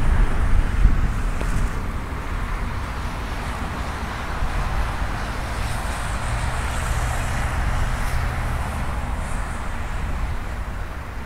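Distant jet aircraft noise at the airport with wind on the microphone: a steady low rumble, loudest at the start and easing after a second or so, with a faint low hum in the middle.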